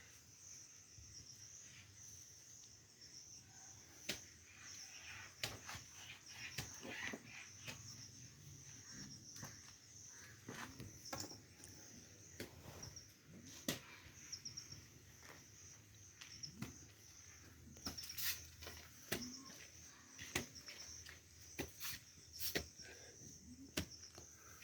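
Faint, steady chirring of insects such as crickets, with scattered light clicks and knocks over it.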